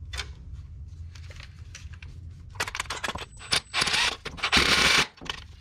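A cordless 1/4-inch hex impact driver (Milwaukee M18 Fuel) driving screws through a garage door opener safety-sensor bracket, running in several short bursts of about half a second each in the second half. Before that come faint clicks from handling the screw and bracket.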